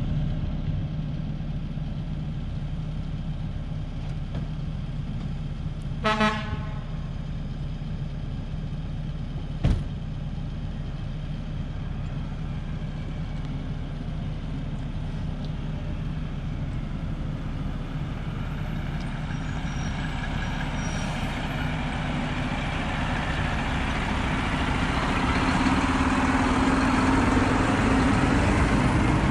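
A diesel engine idles steadily under everything: the mini excavator standing by with its arm rigged to the ditched pickup. About six seconds in a vehicle horn gives a short toot, and near ten seconds there is a single sharp knock. Over the last ten seconds a refuse truck approaches and passes close by, its engine and tyres growing steadily louder.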